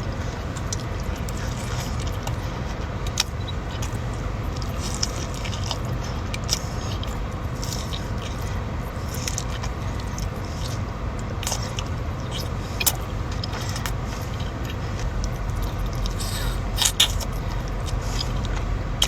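Close-up eating sounds: a person chewing and biting into In-N-Out food, with scattered crackles and clicks, over a steady low rumble.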